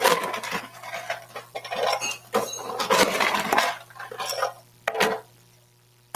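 Metal spoons and utensils clattering and clinking against bowls and glassware in a dense run of quick knocks, then two shorter clatters near the end.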